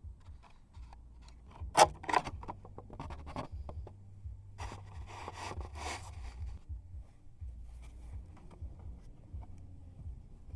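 Close handling sounds: scraping, rubbing and scattered clicks, with one sharp loud click about two seconds in and a burst of rustling around the middle, over a steady low rumble.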